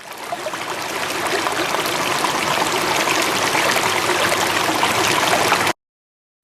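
A steady rushing noise that fades in over about a second, holds even, and cuts off abruptly near the end.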